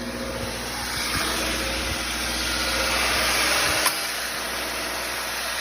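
2014 Subaru Crosstrek's flat-four engine idling steadily after a starter replacement, with one sharp click about four seconds in.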